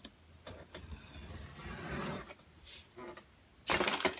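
X-Acto craft knife drawn along a steel ruler, slicing through a sheet of printer paper with a scratchy rasp that builds over the first two seconds. Near the end comes a louder, brief rustle of paper as the trimmed strip is pulled away.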